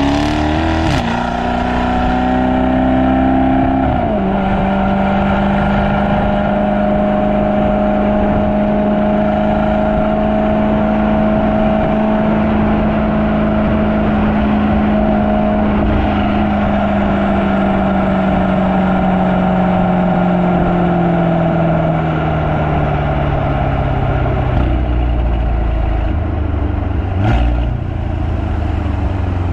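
Mercedes-AMG E63 S's twin-turbo 4.0 litre V8 (M177), with upgraded downpipes and rear exhaust flaps fully open, accelerating through two quick upshifts in the first few seconds. It then runs at a steady engine speed and gradually slows over the last several seconds. Two brief knocks come near the end.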